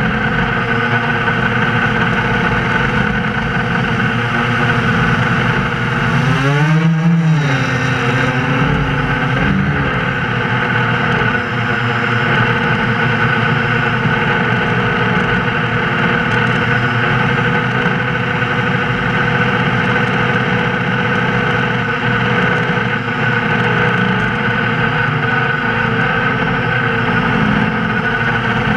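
Multirotor drone's electric motors and propellers running steadily in flight, heard from the onboard camera, with a whine that rises then falls in pitch about seven seconds in as the motors speed up and slow down during a manoeuvre.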